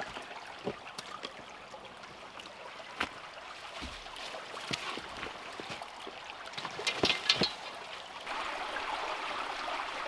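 Water trickling, with scattered clicks and snaps over it; the trickling gets louder about eight seconds in.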